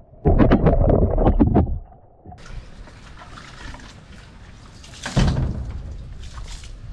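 Water splashing in two loud bursts, about the first two seconds and again a little after five seconds in, with a steady hiss of rain between them.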